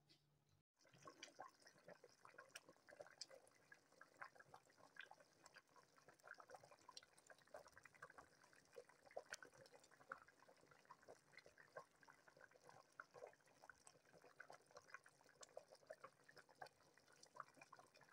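Pot of soup stock boiling: faint, irregular bubbling with small pops throughout.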